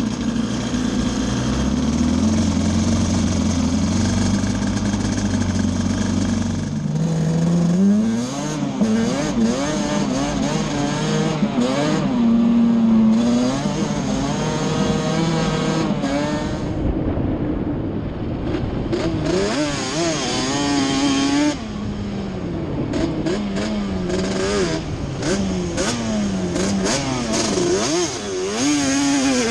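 Yamaha Banshee's twin-cylinder two-stroke engine running steadily for about seven seconds, then revving up and down over and over as the ATV is ridden. Its carburettor needles are set back to the middle clip position, and the engine is running without the misfire.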